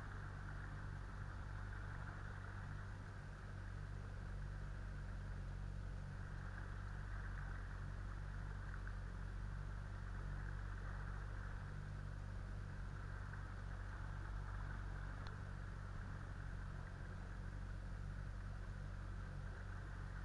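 Small boat's outboard motor running at a steady speed: a constant low drone with an even hiss over it.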